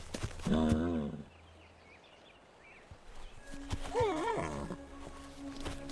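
Horse vocalizing: a low, wavering grunting call about half a second in, then a higher, wavering whinny-like call about four seconds in. A held note of background music runs under the second half.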